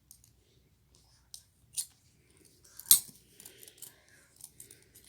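Metal handcuffs and shackles being handled: a few sharp metallic clicks and clinks, the loudest about three seconds in, with faint rustling between.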